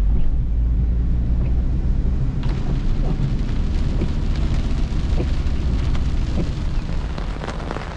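Steady low rumble of a vehicle on the road in heavy rain, heard from inside the cabin, with faint scattered ticks over it.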